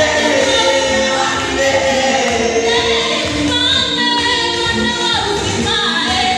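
A choir singing a gospel song in long held notes.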